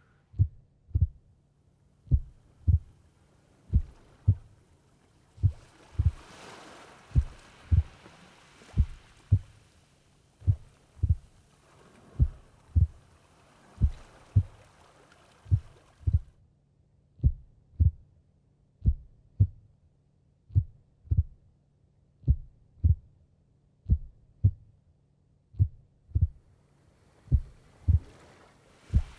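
A slow heartbeat, a lub-dub pair of low thumps about every one and a half seconds (roughly 36 beats a minute), with a faint hiss of water or breath over the middle part.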